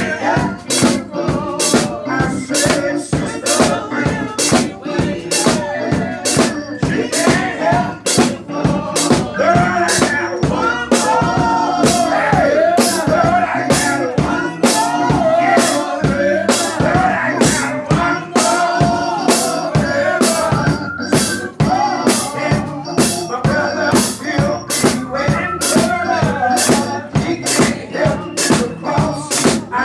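Live gospel music: a man singing into a microphone over a steady beat of about two strokes a second.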